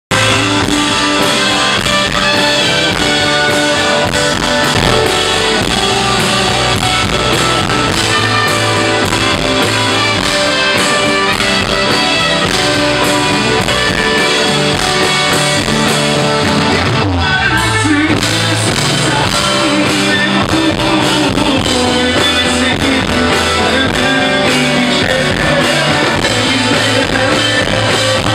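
Live pop-rock band playing loud through the concert sound system, with guitar and keyboard under a male lead vocal. The music drops out briefly about seventeen seconds in, then carries on.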